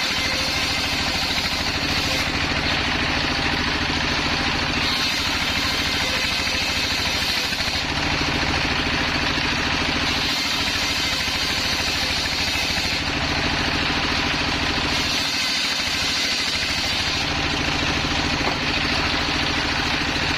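Single-cylinder stationary diesel engine running steadily, belt-driving a sawmill's circular saw blade, its sound shifting every few seconds.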